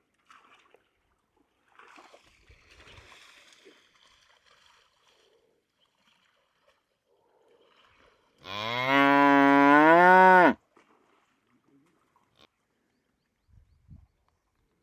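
A buffalo lowing once: a single loud call of about two seconds whose pitch rises toward the end, then cuts off suddenly.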